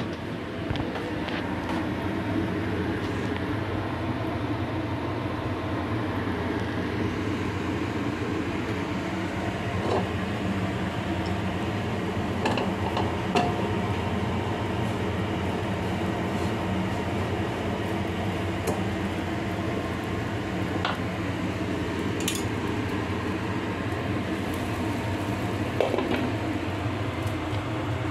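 A steady mechanical drone with several constant hum tones, with a few light clinks of kitchenware scattered through it.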